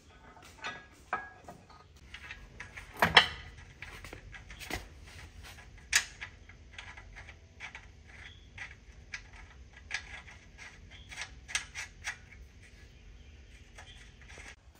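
Scattered metallic clicks and clinks of tools and parts against a motorcycle frame during fitting of the swingarm pivot, with a loud double knock about three seconds in and a sharp click about six seconds in.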